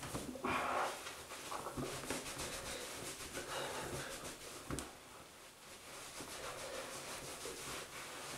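Cotton towel rubbing over a freshly shaved face and neck, an irregular soft rustling scrub that is loudest in the first second.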